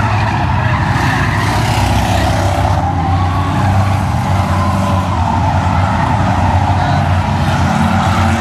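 Engines of a field of stock cars racing around a short oval track, a loud, steady blended engine sound with no single car standing out.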